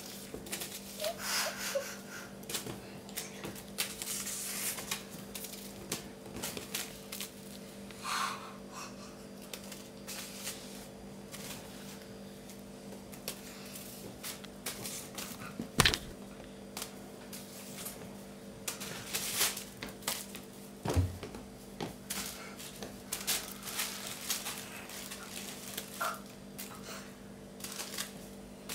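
Burmese kittens playing on a tiled floor: scattered clicks and scuffs of claws and paws on the tile, with a sharp knock about halfway through, over a steady hum.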